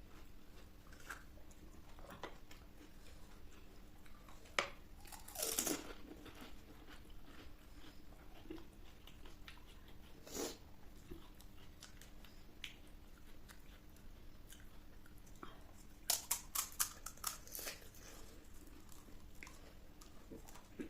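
Close-up eating: crisp panipuri puris crunching and being chewed, with a longer crackling bite about a quarter of the way in and a quick run of sharp crunches about three quarters of the way through.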